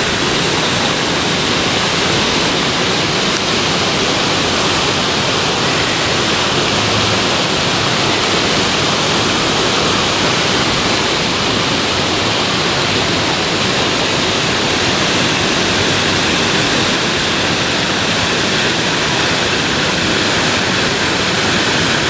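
Shallow creek water rushing steadily over rocks and a small waterfall, an even, unbroken roar.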